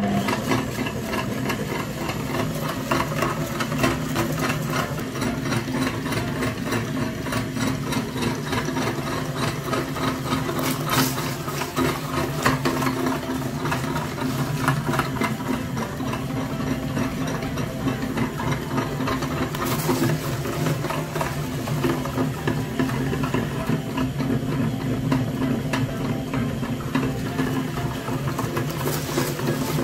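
Small speed-controlled electric gear motor switched on and driving a meat-grinder head, running with a steady mechanical hum and a few sharp clicks.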